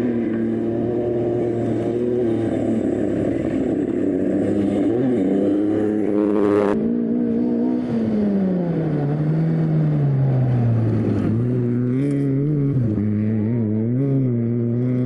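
Rally car engine running hard at high revs. The pitch holds for several seconds, broken by a short sharp noise about halfway through, then falls away for a few seconds as the car slows, and climbs again in quick ups and downs near the end.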